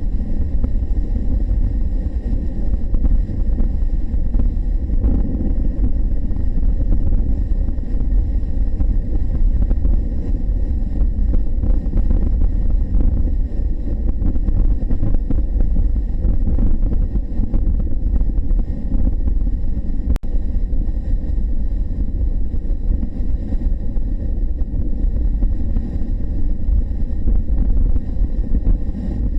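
Honda NC750X motorcycle riding at road speed: a steady low rumble of wind buffeting the microphone mixed with engine and road noise.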